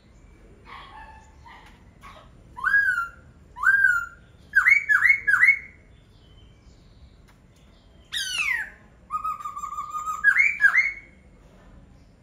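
Laughingthrush (khướu) singing in loud, clear whistled notes that swoop upward. There are two single notes, then three in quick succession. After a pause comes a steep falling note, a steady held note and two more rising notes.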